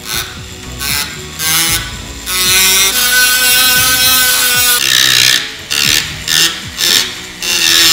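Hand-held rotary tool spinning a small abrasive wheel against a steel knife blade, grinding and polishing its face. It works in short passes, with one long steady pass of about two and a half seconds in the middle that carries a high whine.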